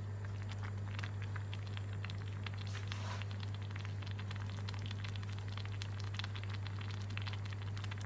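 A pot of bamboo-shoot soup boiling, with irregular small bubbling pops and clicks over a steady low hum.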